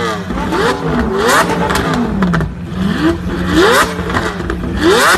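Lamborghini Aventador LP700-4's V12 revving through a Novitec exhaust and downpipe, several quick throttle blips rising and falling in pitch. Sharp crackling pops come in around the rev peaks and drops.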